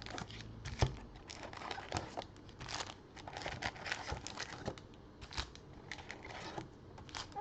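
Sealed packs of trading cards crinkling and rustling as they are taken out of a cardboard retail box, with many irregular small taps and clicks.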